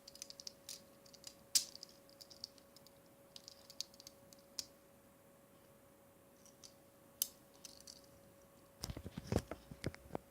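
Metal handcuffs being handled: a fast run of small ratcheting clicks for about the first two seconds, then scattered clicks, and a few knocks near the end.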